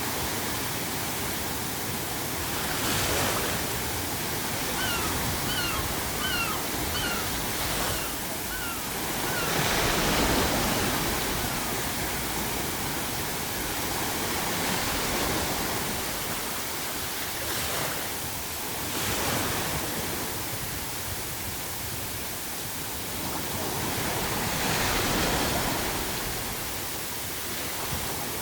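Ocean waves breaking on the shore, a continuous wash that swells every several seconds. A run of faint, short seagull calls comes about five seconds in.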